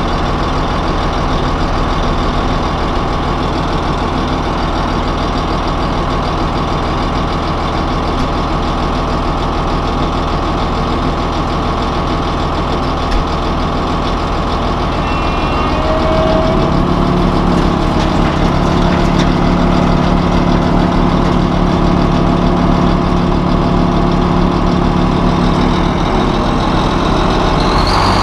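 Heavy diesel engine of a truck-mounted wood chipper running steadily, with a deeper hum joining a little over halfway through.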